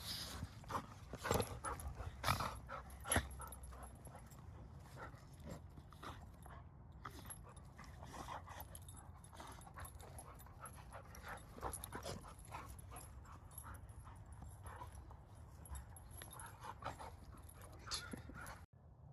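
Two dogs, a golden retriever and a curly-coated dog, play-wrestling: short, sharp dog noises, loudest and most frequent in the first three seconds, then quieter and more scattered.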